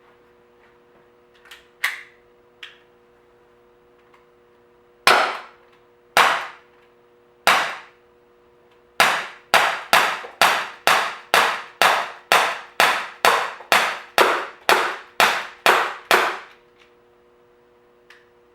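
ASG CZ 75 P-07 Duty CO2 blowback BB pistol firing .177 steel BBs: each shot is a sharp pop with the slide cycling. Three single shots about a second apart come first, then a rapid string of about sixteen shots at roughly two a second. A few light clicks come before the first shot.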